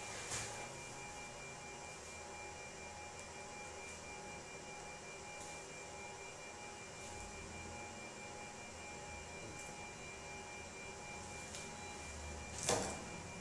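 Faint steady electrical hum and whine: several thin steady tones over hiss. A brief handling rustle comes just after the start, and a louder one about a second before the end, as a small lavalier clip microphone and its cable are handled.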